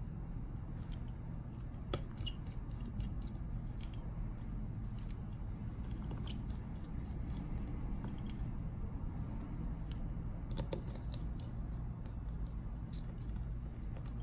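Scattered light clicks and ticks of a precision screwdriver and tiny screws being driven back into a smartphone's plastic midframe, over a steady low hum.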